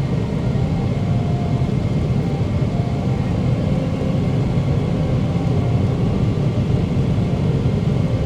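Steady cabin rumble inside a Boeing 777-300ER: the drone of its GE90 engines and the rush of airflow, with a faint steady whine above it.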